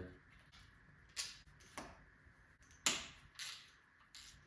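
Four light clicks and knocks of hard parts being handled, spaced roughly a second apart.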